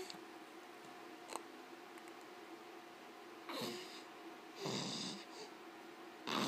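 A baby's noisy, snore-like breaths as it dozes off: two breathy breaths in the second half, over a faint steady hum.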